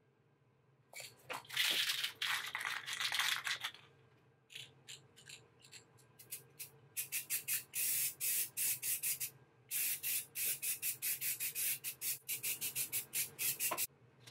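Aerosol can of filler primer spraying: one hiss of about three seconds, then from about seven seconds a fast run of short spray bursts, about four a second, with one short break.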